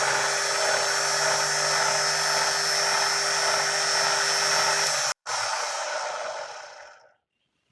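Clatronic KM2718 1000 W stand mixer running on its replacement motor: a steady motor hum with a high whine, its test run after the noisy original motor was swapped out. Just after five seconds it cuts off, then it winds down and fades out by about seven seconds.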